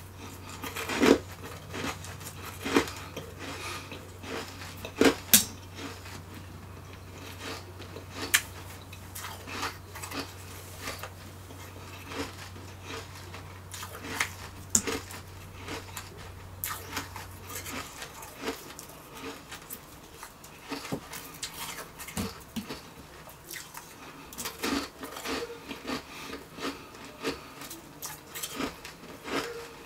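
Refrozen shaved ice being bitten and chewed, giving irregular sharp crunches and crackles, loudest about a second in and again about five seconds in.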